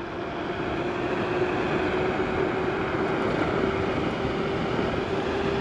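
Wind rushing over the microphone and tyre noise from a Gotrax GX1 dual-motor electric scooter riding at speed in sport mode, near 42 km/h. A faint steady motor whine runs underneath, and the sound grows slightly louder over the first two seconds.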